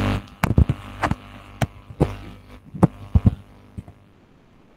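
Irregular sharp clicks and knocks from computer keys and mouse picked up by a nearby microphone, about nine of them, thinning out after about three and a half seconds, over a low hum that is loudest at the start.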